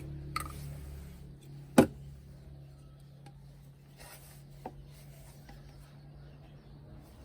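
One sharp knock about two seconds in, with a couple of faint clicks, over a steady low hum.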